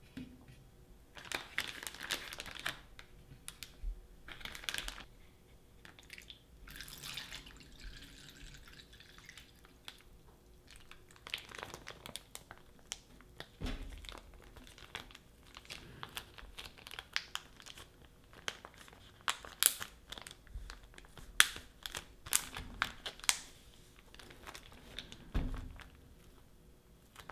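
Plastic zipper bag rustling and crinkling as hands fill it with peeled eggs and marinade, press the air out and seal it, with sharp crackles and clicks in the second half and a few dull knocks against the counter.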